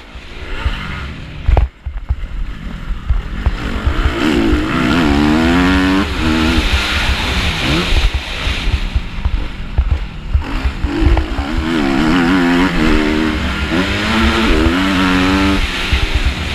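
Motocross bike engine revving hard, its pitch climbing and dropping again and again through the gears. It is heard from a helmet-mounted camera with wind rumbling on the microphone, and there is a sharp thud about a second and a half in.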